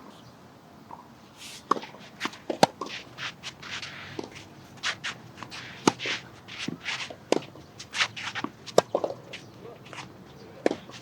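Tennis rally: sharp racket strikes and ball bounces, the loudest about every second and a half, with players' footsteps and shoe scuffs between them.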